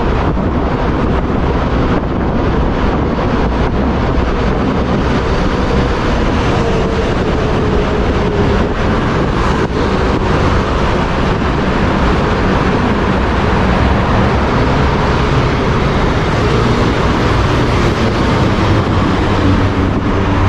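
Steady rush of wind on the microphone of a moving road bicycle, with a faint vehicle engine hum in the middle that sinks slightly in pitch.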